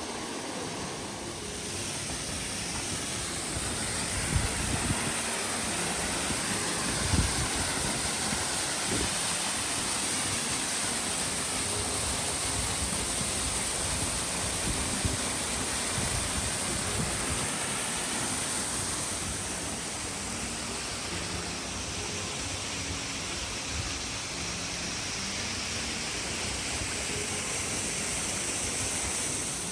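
Steady rush of a waterfall: a constant hiss of falling water, with a few low thumps on the microphone early on.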